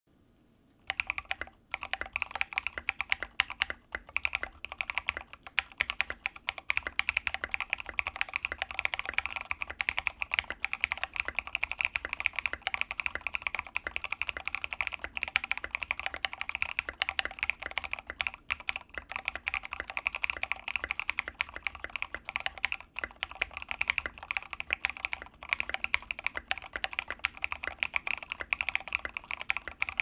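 Fast, steady typing on a G60 mechanical keyboard with SA-profile keycaps and Cream linear switches: a dense, unbroken patter of keystroke clacks that starts about a second in.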